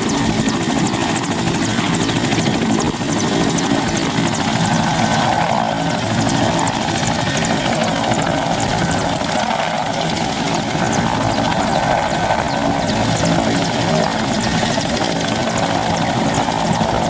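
Mil Mi-8MT helicopter landing, its main rotor and turboshaft engines running loud and steady, with a regular rotor chop throughout.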